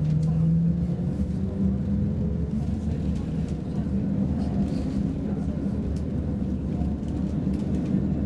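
Roslagsbanan X10p electric multiple unit running, heard from the passenger cabin: a steady rumble of wheels on rails under the hum of the electric traction motors, with a motor tone rising slightly in pitch near the start as the train picks up speed. A few faint clicks of the wheels over rail joints and points.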